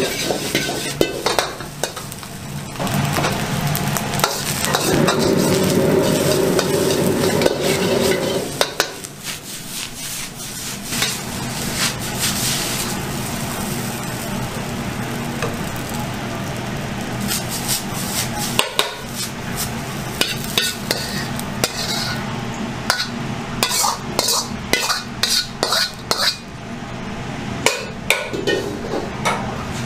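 Metal ladle scraping and tossing fried rice in a carbon-steel wok over a gas wok burner, with sizzling and a steady burner roar for the first several seconds. It then turns quieter, with scattered clinks of the ladle on the wok and bowl and a quick run of sharp taps about three quarters of the way in as the rice is ladled out.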